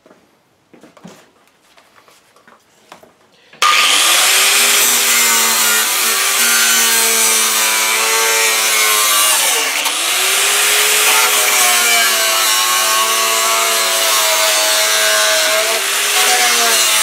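Electric angle grinder starts abruptly a few seconds in after some light handling knocks, then runs loud against the rusted steel of a lawn mower deck. Its whine dips in pitch and recovers as the disc bites into the metal and is eased off.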